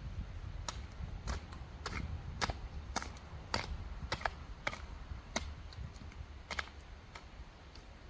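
Repeated sharp knocks, about two a second and unevenly spaced, some in quick pairs, over a low rumble.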